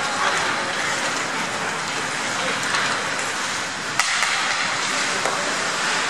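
Ice hockey play in an indoor rink: a steady noisy wash of skates on the ice and rink noise, with one sharp crack about four seconds in.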